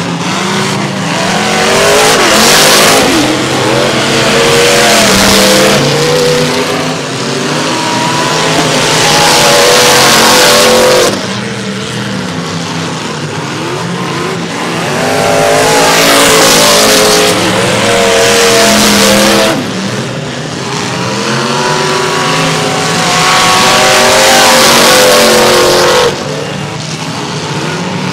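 Demolition derby car engines revving hard in repeated surges of several seconds, the pitch climbing, each surge cutting off abruptly when the throttle is let off, three times.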